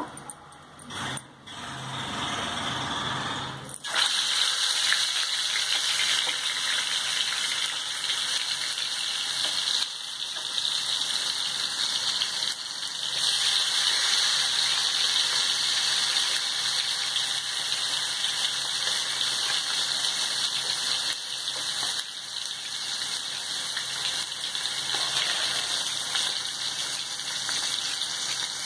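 Marinated chicken legs deep-frying in hot oil in a pan: a steady sizzling hiss that sets in suddenly about four seconds in.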